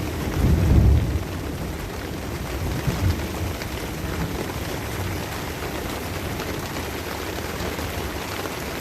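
Steady rain falling, with a low rumble of thunder in the first second and a shorter, weaker one about three seconds in.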